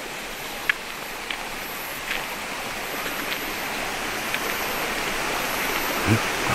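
Steady rushing of a stream's running water, growing gradually louder, with a few light ticks over it.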